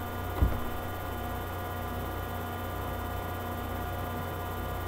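Steady electrical mains hum and buzz, with a soft low bump about half a second in.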